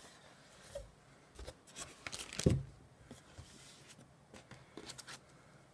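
Hands handling the contents of a freshly opened card-game box: light cardboard and paper rustling and small clicks, with one louder knock about two and a half seconds in.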